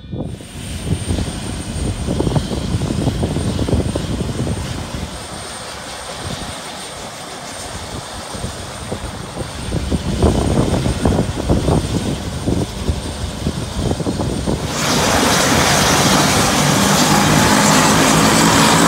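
Convair 580 turboprop airliner running up its engines on the ground: a low rumble with a thin steady high whine, then about fifteen seconds in the sound jumps to a much louder, full roar with a steady hum as the engine comes up to power.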